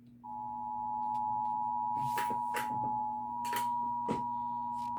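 Emergency Alert System attention signal: two steady tones (853 and 960 Hz) sounding together, starting just after the beginning and holding without a break. It announces a flash flood warning. A few short noises break briefly over it around the middle.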